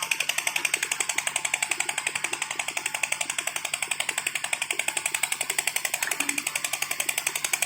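An engine running steadily at idle, with a rapid, even pulsing that does not change.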